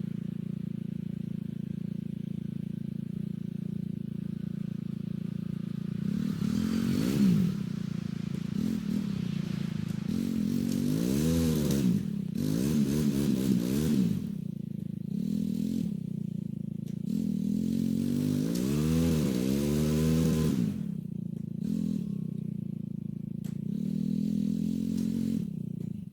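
Vehicle engine running, revving up and falling back several times. It cuts off suddenly at the end.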